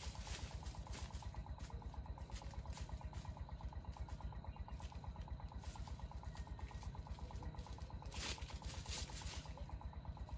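A small engine idling with a steady, even throb of about five pulses a second. A short burst of hissing noise comes about eight seconds in.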